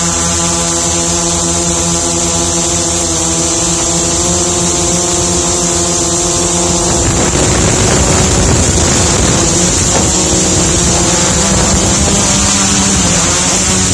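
Multirotor drone's electric motors and propellers running steadily, heard from its onboard camera as a buzzing hum with a high steady whine. About halfway through, wind rush on the microphone grows louder and the motor tone blurs and shifts.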